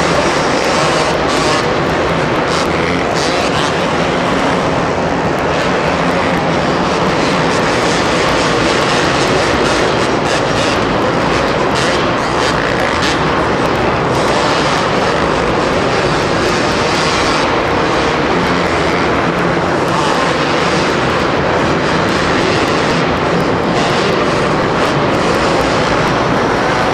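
Two-stroke supercross racing motorcycles running hard on the track, their engines revving in a loud, steady mix.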